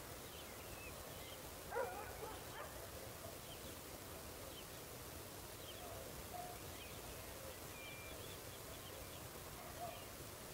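Rural evening ambience: a dog barks about two seconds in, with a smaller bark-like call near the end. Faint short high chirps and a steady low background hiss run underneath.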